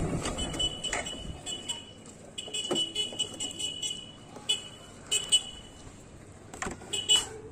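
Suzuki Gixxer SF motorcycle coming to a stop: the riding noise of wind and engine dies away within the first second or so. After that a high-pitched tone sounds on and off, with several light clicks.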